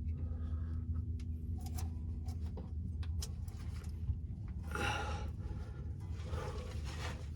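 Faint scattered clicks and rustling of hands working spark plug wires in an engine bay, over a steady low hum, with a short louder rustle about five seconds in.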